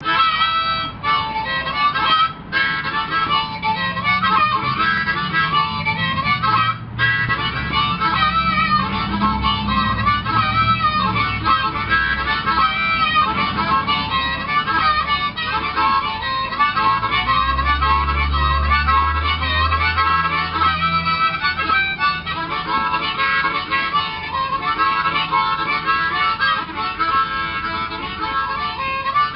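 Blues harmonica played solo, held cupped in both hands: a steady run of notes that bend up and down in pitch, with brief breaks about two and a half and seven seconds in.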